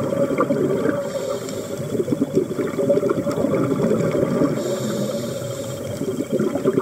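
Underwater water noise: a continuous low bubbling and gurgling.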